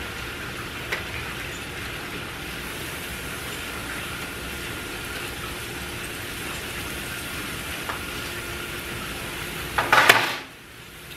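Steady hiss of steaks searing on the hot grates of a gas grill, with a few faint clicks, and a short loud clatter near the end.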